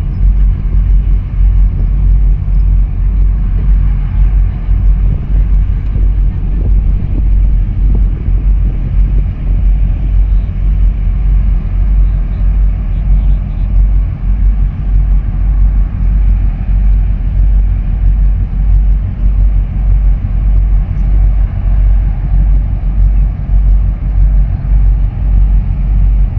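Wind buffeting the microphone: a loud, steady low rumble whose level flutters rapidly and unevenly, with faint hiss above it.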